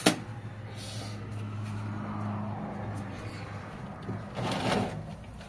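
Kitchen handling over a basin of water: a sharp knock at the start, a steady low hum for a couple of seconds, then a brief splash-like rush of noise about four and a half seconds in.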